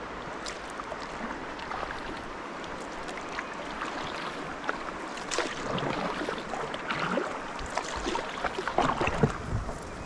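Water splashing and lapping around a kayak as it is handled at the water's edge, with irregular knocks and scrapes against the hull and a few heavier thumps near the end.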